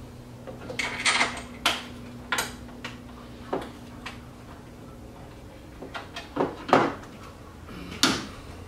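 Hand tools and car parts clicking and knocking as they are handled in a car's engine bay: about nine irregular sharp knocks, the loudest near the end, over a faint steady low hum.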